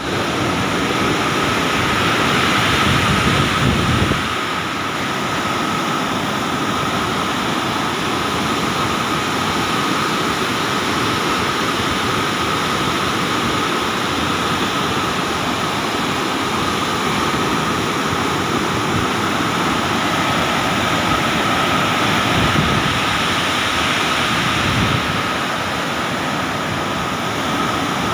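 Floodwater released through a dam's spillway gates, crashing and churning below: a loud, steady rush of white water. A faint steady high tone runs underneath, and the low rumble swells in the first few seconds and again near the end.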